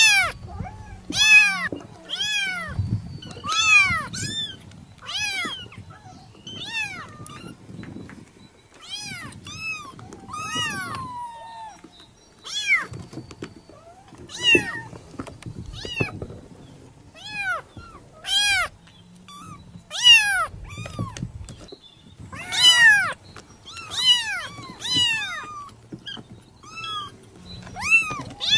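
Kittens mewing over and over: short, high-pitched mews that rise and fall in pitch, coming about once a second and sometimes in quick runs.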